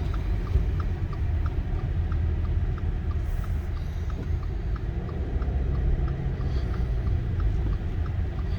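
Steady low rumble of a car driving on a snowy road, heard from inside the cabin: tyre and engine noise. A faint light ticking repeats evenly a few times a second throughout.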